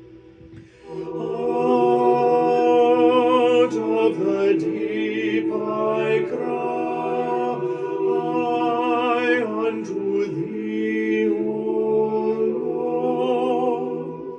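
Several voices singing a cappella, holding long, slow notes with vibrato. The singing enters about a second in and breaks off near the end.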